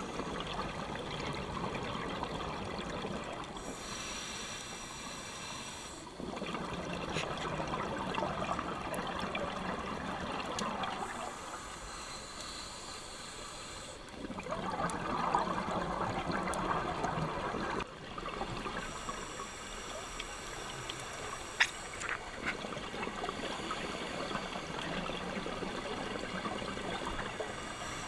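Underwater sound through a diving camera: a scuba diver's exhaled bubbles gurgling past in several long bursts of a few seconds each, with quieter stretches between them. A single sharp click about three quarters of the way through.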